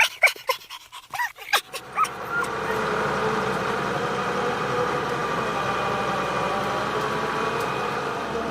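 A few short, high yelping cries, then about two seconds in a large excavator's diesel engine takes over, running steadily.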